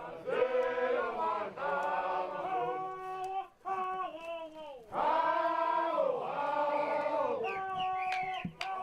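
A group of voices singing, holding long notes that step from one pitch to the next, with two brief breaks.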